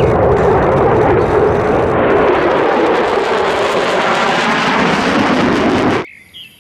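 Jet aircraft engine noise, loud and steady, likely a sound effect laid over a toy fighter jet; it cuts off abruptly about six seconds in.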